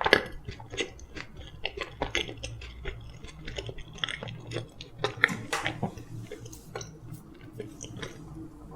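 A person chewing food close to the microphone, with irregular wet smacks and small mouth clicks.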